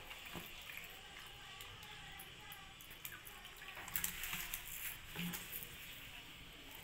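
Water poured from a plastic bottle into a clear plastic cup, with a few light knocks of the bottle and cup being handled.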